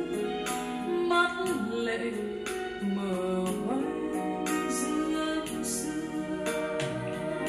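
Vietnamese pop ballad sung by a woman with instrumental backing, played through a portable Bluetooth speaker built as a B&O Beosound Explore, for a listening test.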